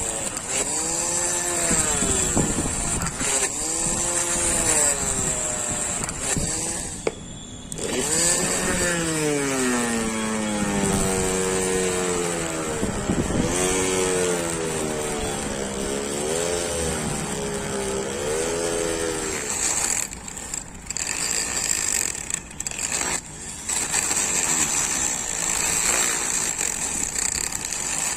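A motor running with its pitch repeatedly rising and falling as its speed is varied, then running more steadily for the last several seconds with a few brief dips.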